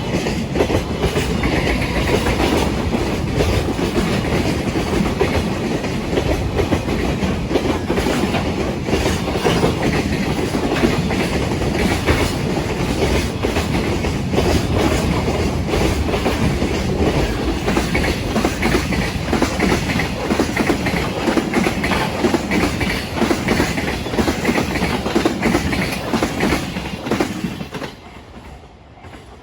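Freight train passing close by, its wagons' wheels clattering steadily over the rail joints. A second or so before the end the last wagon clears and the sound drops away sharply.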